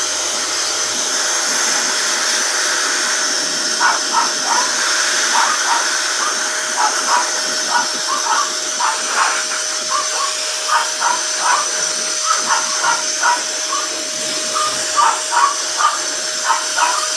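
Hose-type pet grooming blower dryer running steadily with a constant whine and rushing air as it blows through a dog's coat. From about four seconds in, short high-pitched cries come again and again over the blower.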